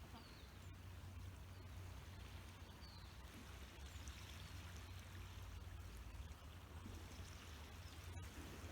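Faint steady outdoor noise with a few short, high bird chirps.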